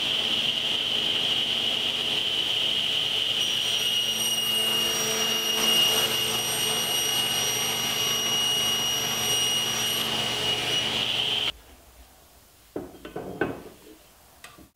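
Table saw running and ripping a PVC (Azek) trim board lengthwise: a steady high whine that stops abruptly about three-quarters of the way through. A few light clicks and knocks follow near the end.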